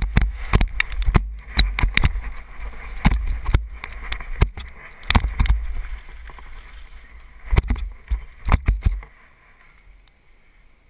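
Mountain bike ridden fast down a rough dirt trail: wind buffets the helmet-mounted microphone, with frequent sharp knocks and rattles as the bike hits bumps, roots and jump landings. About nine seconds in the sound drops to a faint hiss.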